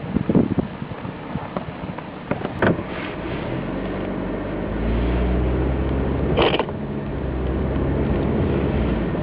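A few knocks and thuds, then a car engine running steadily. The engine gets louder about five seconds in.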